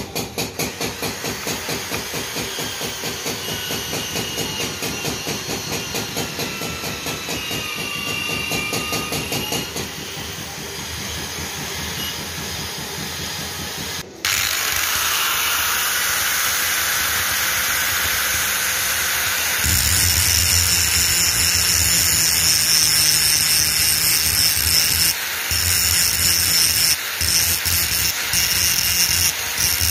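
An electric angle grinder with a wire wheel starts about twenty seconds in and runs steadily against a rusty iron hammer head, with a low hum and a high whine, briefly dipping a few times. Before it there is a rapid, even pulsing with faint gliding tones, then about halfway through a sudden steady hiss.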